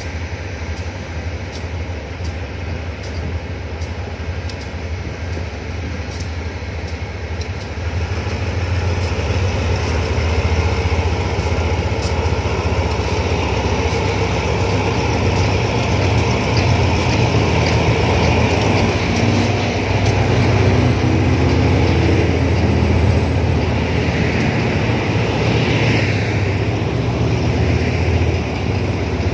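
Diesel-electric locomotive, an SRT GE CM22-7i, pulling a passenger train out slowly: a steady low engine drone that grows louder about eight seconds in as the locomotive draws near and passes. It is followed by the coaches rolling by on the rails.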